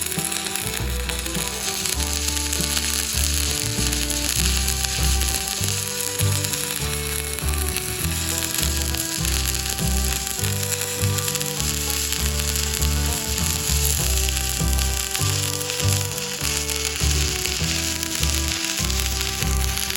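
Arc welding: a steady crackling sizzle of the electric arc as the bead is run, over background music with a low, stepping bassline.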